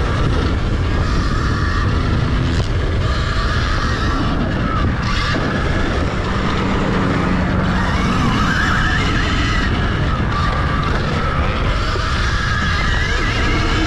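Electric dirt bike racing on a motocross track: the motor's whine rises and falls in pitch with the throttle over a steady rush of wind and ground noise.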